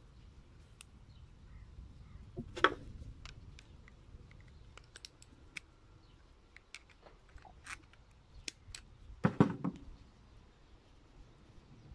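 Small metallic clicks and ticks from working a piston's wrist-pin circlip into its groove with fingers and needle-nose pliers, with two louder sharp clinks, about two and a half seconds in and again near nine seconds.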